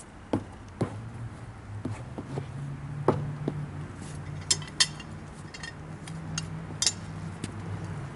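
Scattered metal clinks and knocks over a low engine hum that starts about a second in and rises a little in pitch.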